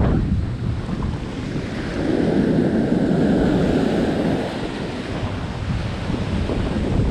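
Surf washing up the beach in shallow, foamy swash, swelling about two seconds in and easing off again, with wind rumbling on the microphone.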